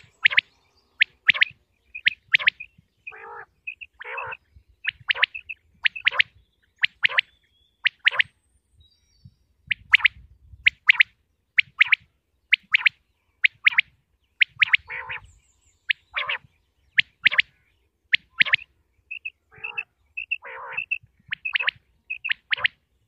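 Common quail (batair) calling over and over: short, sharp, high notes, often in quick groups of two or three, some with a lower, rougher note, as used on quail-hunting call recordings.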